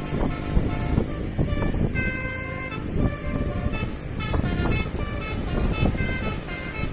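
A telolet basuri multi-tone horn on an angkot minibus playing a tune, its notes stepping from one pitch to the next about every half second, over a heavy low thumping.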